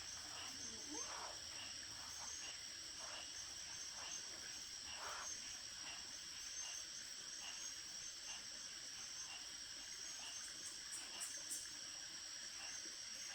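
Steady chorus of insects, a high shrill buzz with softer chirps repeating evenly beneath it.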